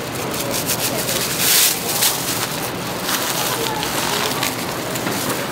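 Thin black plastic bag rustling and crinkling in irregular flurries as it is folded and wrapped around a food parcel.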